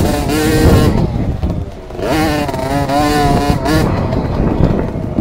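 A Husqvarna TC 50 kids' 50cc two-stroke motocross bike heard onboard while riding, its engine held high, then briefly easing off about two seconds in before climbing again. A rough rumble runs underneath.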